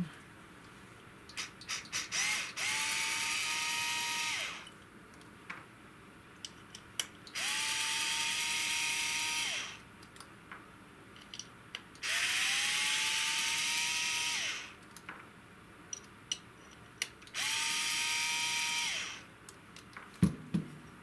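A small electric screwdriver or power driver running in four short bursts of about two seconds each, spinning up to a steady whine, with small clicks of parts and screws being handled in between.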